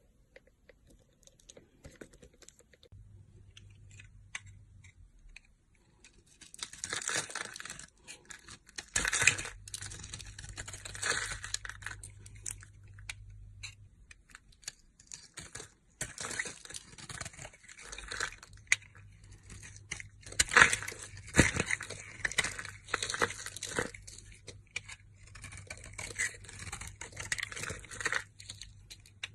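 Crisp crackling and crunching, like something being torn or crumpled, in stretches of a few seconds with short breaks. It is faint for the first several seconds and then much louder from about six seconds in.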